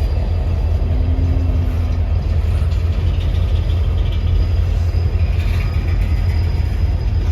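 Diesel locomotive engine of a departing freight train running with a steady deep rumble.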